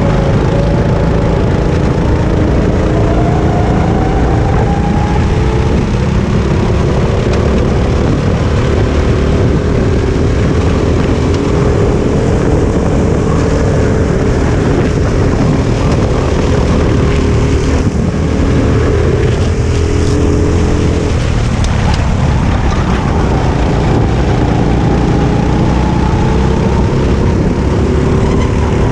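Onboard sound of a Sodi RT8 rental kart racing, its four-stroke engine running hard, the pitch rising and falling as it brakes and accelerates through the corners. Other karts' engines sound close by.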